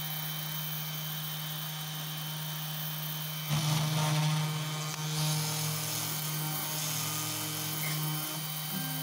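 Spindle motor of a CNC2418 router running with a steady hum while a 0.8 mm corn-cob end mill mills a copper-clad PCB blank. About three and a half seconds in, the cutting noise turns louder and harsher for a second or two, then settles back.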